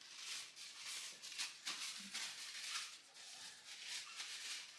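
Paper napkin crinkling and rustling in a pair of hands as they are wiped, in short irregular rustles.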